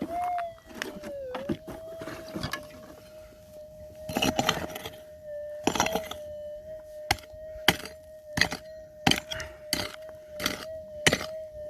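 Pick digging into hard, rocky ground: scraping early on, then a run of sharp blows about two a second through the second half. Under it runs the steady hum of the Minelab GPZ 7000 metal detector's threshold tone, wavering briefly at the start.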